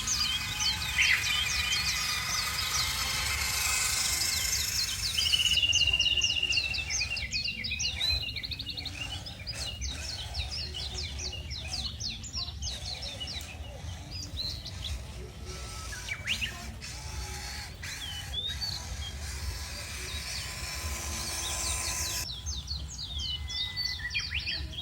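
Many small birds chirping and twittering in quick sweeping calls, busiest in the first several seconds and sparser after, over a steady low rumble.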